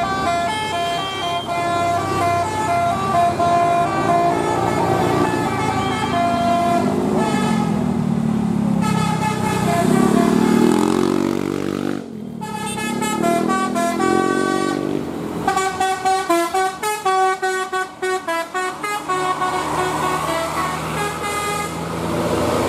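Indonesian bus 'telolet basuri' musical horn, sounded through roof-mounted trumpets, playing a quick tune of short stepped notes over the bus engine's running. After a brief break about halfway through, another fast horn tune begins.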